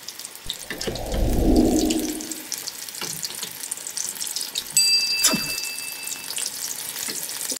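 Hot oil sizzling and crackling steadily as batter-coated mushroom pieces deep-fry, with more pieces dropped in by hand. A low swell of sound rises and fades about a second in, and a steady high tone sounds for about a second and a half a little past the middle.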